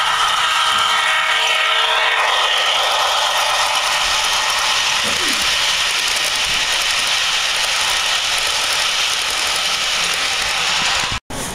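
HO scale model passenger train running past close by. The locomotive's motor and gears whine for the first two seconds or so, then the passenger cars' wheels rattle and click rapidly and steadily over the track. The sound cuts out for an instant near the end.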